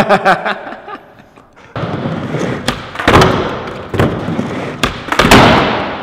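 Skateboard rolling on a ramp, with a steady rumble of the wheels broken by several hard thuds and clacks of the board; the loudest bang comes about five seconds in.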